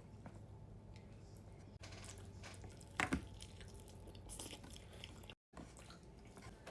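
Faint chewing of chicken wings close to the microphone, with one sharper click or knock about three seconds in.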